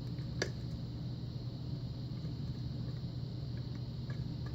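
Lock pick working the pin stack of an old 6-pin Russwin pin-tumbler lock held under tension: one sharp click about half a second in and a few faint ticks near the end, as the lock comes back into a shallow false set. A steady low hum underlies it.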